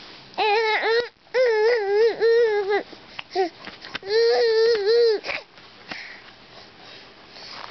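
Baby letting out loud, high-pitched, wavering cries in three stretches, the longest about a second and a half, then falling quiet near the end.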